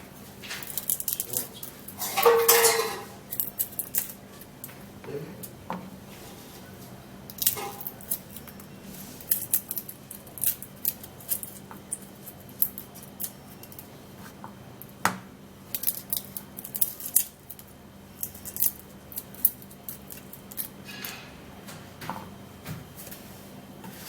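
Garlic being cut up with a knife: irregular sharp clicks and snips of the blade, with a louder clatter about two seconds in.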